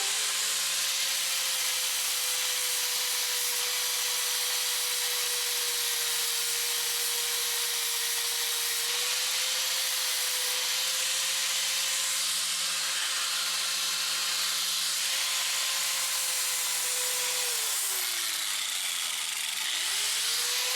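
Small electric power tool running steadily with a rasping hiss of abrasion on metal, as in cleaning rust off a door hinge. The motor slows about 18 seconds in, then speeds back up near the end.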